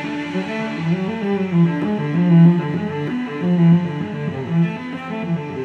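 Instrumental background music: a melody on string instruments, plucked and bowed.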